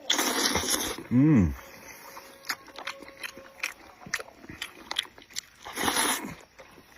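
Close-miked eating of soft beef tendon: noisy slurps near the start and again near the end, with wet chewing and lip-smacking clicks between them. There is a short hummed "mm" about a second in.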